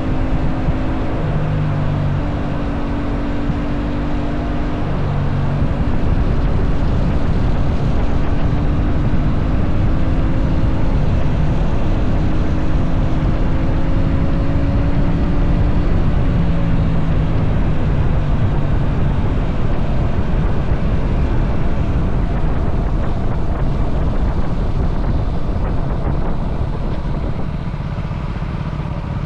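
Aprilia RS 457 parallel-twin engine running under way, its note shifting in pitch a few times with the throttle, over a steady rush of wind and road noise. It gets louder a few seconds in and eases off near the end.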